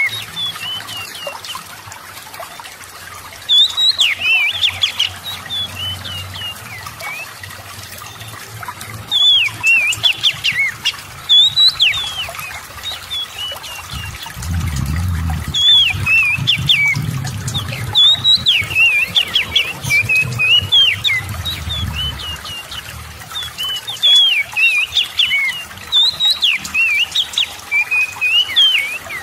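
Oriental magpie-robin singing in short, sharp, quickly changing whistled phrases repeated all through, over faint trickling water. A low rumble rises in the middle and fades out again.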